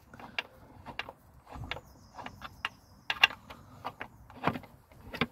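Irregular metallic clicks and taps of a small wrench working the front-fender mounting bolt on a Honda CG125's fork leg, about a dozen clicks spaced unevenly.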